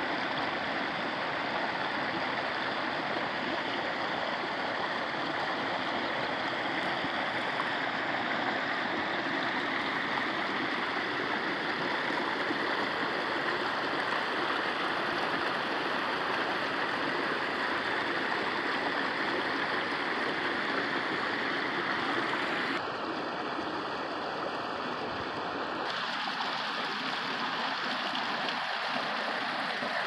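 Mountain creek swollen with snowmelt rushing and splashing over boulders and small cascades, a steady rush of water. The sound thins a little about three-quarters of the way through.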